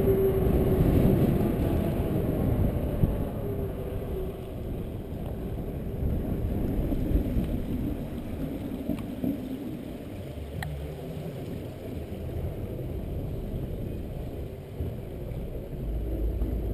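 Mountain bike rolling: tyre noise and wind on the camera's microphone. It is loudest at first on the tarmac lane, then eases as the bike slows onto a wooden boardwalk, with a few light clicks.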